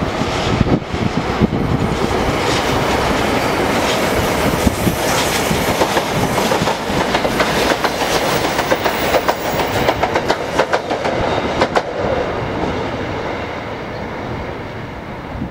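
NJ Transit locomotive-hauled commuter train passing close by: a steady rumble with wheels clicking over rail joints. The clicks come thickest around ten to twelve seconds in, and the sound fades near the end as the last car goes by.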